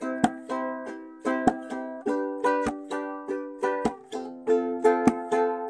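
Ukulele strummed in a steady rhythm, each chord ringing out and fading before the next stroke, with no singing.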